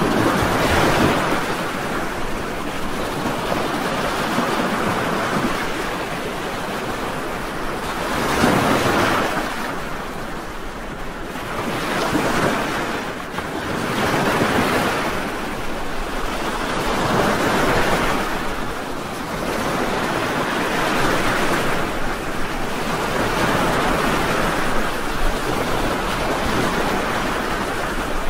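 Ocean surf breaking and washing up on a sandy beach, the wash swelling and fading every few seconds.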